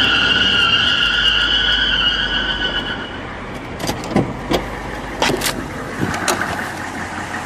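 A steady high-pitched squeal that fades out about three seconds in, followed by a handful of sharp knocks.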